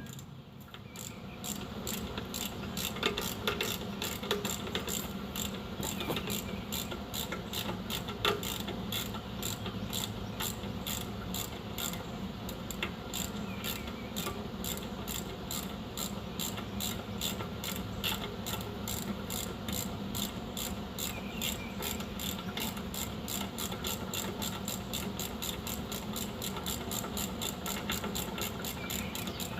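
Steady run of evenly spaced clicks, a few a second, over a low steady hum.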